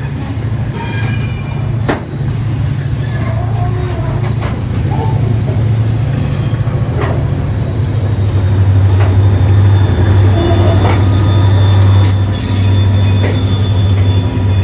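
Freight train of loaded stone hopper cars rolling past, a steady low rumble that grows louder over the last few seconds. Sharp clicks of wheels over rail joints and a few short wheel squeals come through it.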